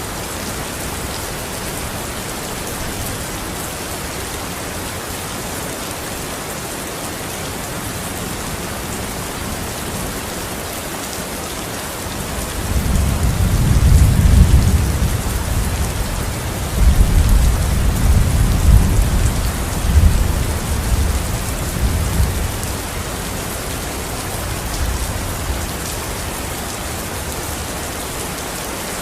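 Steady rain falling on a hard surface. About halfway through, a long rolling rumble of thunder swells, dips and swells again, then fades over roughly ten seconds.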